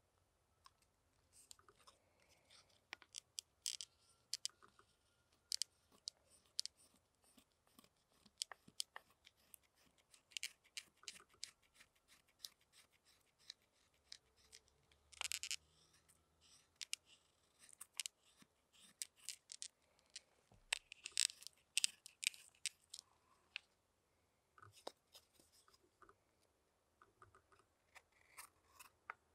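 Hook knife carving out the bowl of a wooden spoon: a run of short, irregular slicing cuts as shavings come off, with louder clusters of cuts about halfway through and again a little later.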